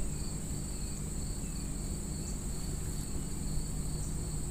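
Steady, high-pitched insect trilling, like crickets, over a low steady hum.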